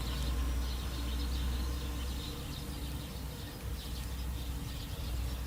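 VAZ 2110 engine idling: a steady low hum with a fainter steady tone above it.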